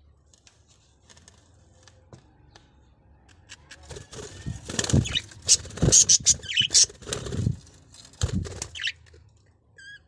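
Budgerigar wings flapping close to the microphone as a bird takes off and flies past, in a run of fluttering bursts starting about four seconds in. A couple of short budgie chirps come near the end.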